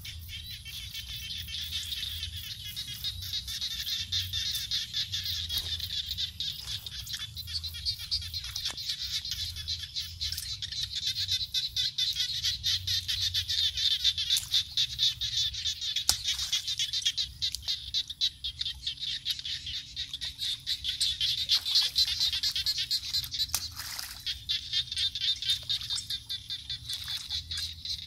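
Dense chorus of frogs and insects calling from a flooded field: a high, fast-pulsing trill that goes on without a break.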